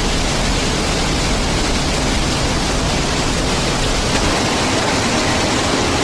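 Waterfall pouring close by: a steady, even rushing noise with no breaks or changes.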